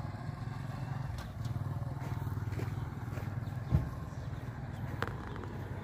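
Pickup truck engine idling, a steady low pulsing rumble. A single heavy thump comes nearly four seconds in, and a sharper knock about a second later.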